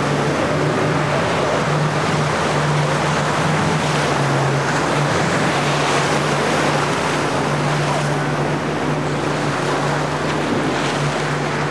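Triple outboard motors of a center-console boat running at speed, a steady low drone over the rush of spray, wake and breaking surf.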